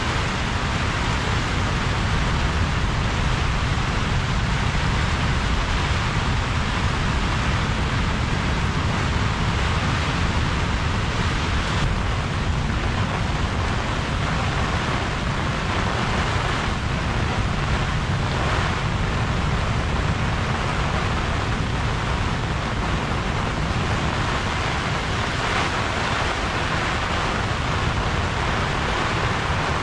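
Steady wind and rain of a severe tropical storm, with gusts buffeting the microphone in a constant low rumble under the hiss of the rain.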